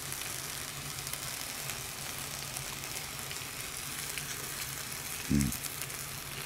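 Aluminium foil tray of nabeyaki udon heating over a gas flame, sizzling steadily with fine crackles. A single dull thump about five seconds in.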